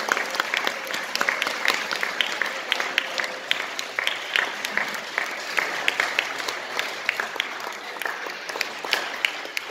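Applause: many hands clapping in quick, irregular claps throughout.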